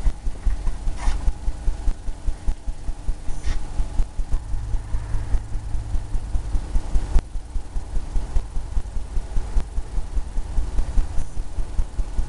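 Rapid, irregular low thumps, about five a second, of a paintbrush dabbing against a stretched canvas.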